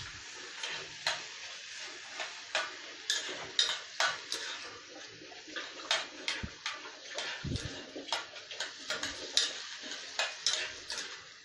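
A spoon stirring broccoli in a small saucepan, clinking and scraping irregularly against the pot, over a steady sizzle of the broccoli cooking in butter.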